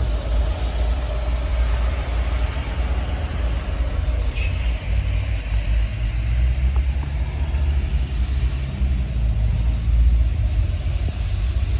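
Wind in a snow storm buffeting a phone's microphone: a low, uneven rumble with a hiss above it, and one brief click about four and a half seconds in.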